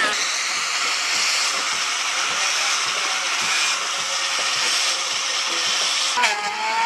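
Electric angle grinder with an abrasive disc grinding and sanding the carved wood of a timber post, a steady rough hiss. Near the end a different, more tonal motor whine takes over.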